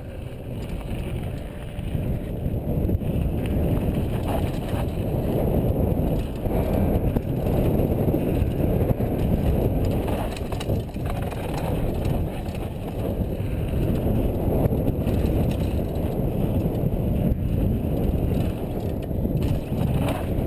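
Wind buffeting a GoPro microphone during a downhill mountain bike run, mixed with the steady rumble and rattle of the bike over rough trail.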